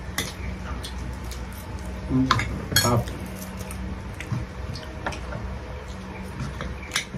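Spoons and forks clinking and scraping on plates and bowls as two people eat, a scatter of light clicks. A brief bit of voice comes about two seconds in.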